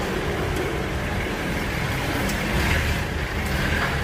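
Street ambience dominated by a steady low rumble of road traffic.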